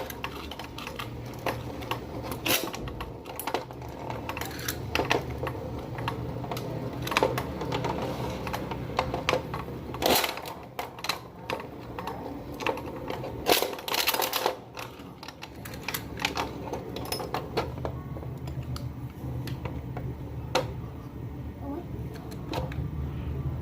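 Irregular clicks and clatter of small hard objects being handled, over a low steady hum.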